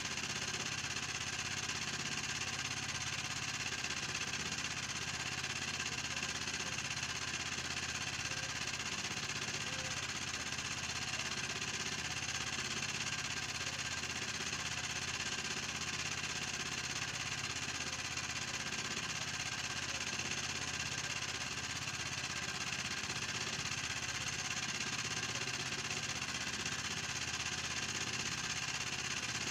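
Small engine running steadily at a constant speed, an even hum that does not change.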